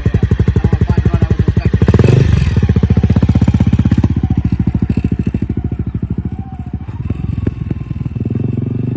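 Dual-sport motorcycle engine running with a steady, rapid firing beat. About two seconds in it is briefly revved louder, then it settles back to a quieter, lower-revving run.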